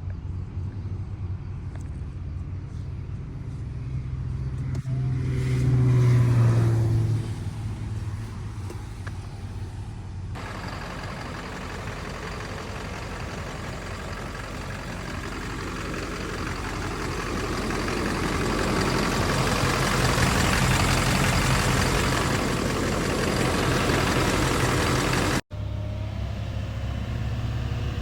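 LBZ Duramax 6.6-litre V8 turbo-diesel running, revved up briefly about five seconds in, then a broad rushing noise that builds steadily over the second half, with a sudden break near the end.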